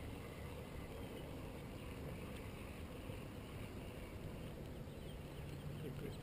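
Spinning reel being cranked to bring in a hooked sand bass, faint ticking over a steady low rumble of wind and water.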